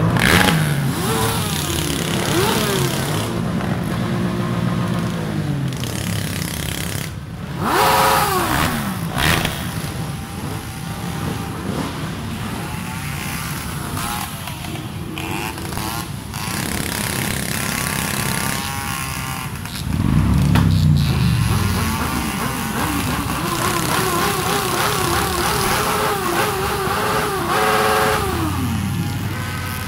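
A column of motorcycle engines running at low speed, with repeated rises and falls of revs. The loudest revs come about eight seconds in, about twenty seconds in and near the end.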